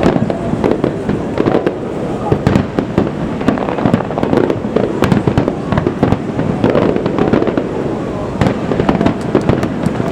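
Fireworks display: a dense, unbroken run of aerial shell bursts, the bangs and crackle overlapping several times a second.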